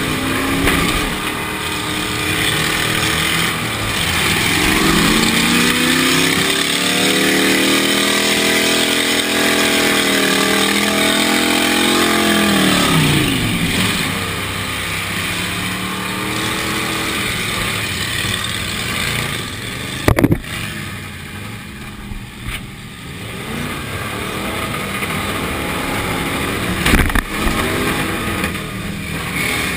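Demolition derby car's engine heard from inside the cab, revved up hard and held high for several seconds before dropping back, running on with lighter throttle. Two sharp impacts cut through, about 20 seconds in and again near the end.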